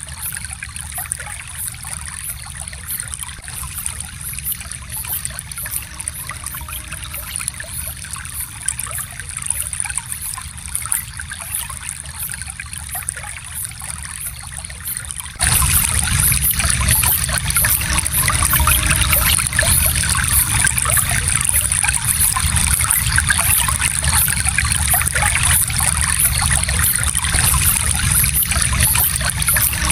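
Shallow stream flowing and trickling steadily. About fifteen seconds in, the water turns suddenly louder and stays so.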